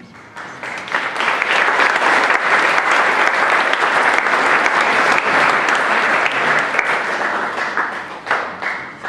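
Congregation applauding. The clapping swells about a second in, holds steady and dense, and thins out near the end.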